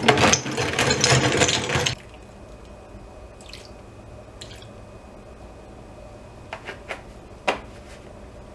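Ice cubes poured into a plastic bowl on a kitchen scale, rattling and clattering for about two seconds and then stopping, followed by a few light clicks as the ice settles. The ice is being weighed as the water for a lye solution.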